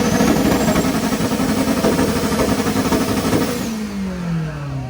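Mitsubishi car engine held at high revs on a two-step launch limiter, crackling and popping rapidly. About three and a half seconds in the throttle is released and the revs fall back to idle.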